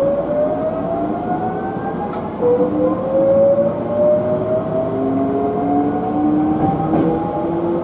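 Hankyu 8000 series electric train accelerating away from a station, its traction motors and inverter giving a whine of several tones that rise slowly in pitch. A fresh, louder tone joins about two and a half seconds in and climbs with the rest.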